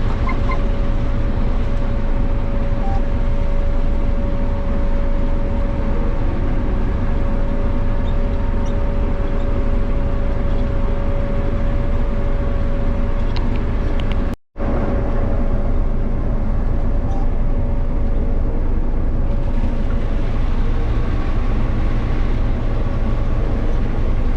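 A combine harvester running steadily while picking corn: a constant drone with a steady whine over it. The sound drops out for a moment about two-thirds of the way through.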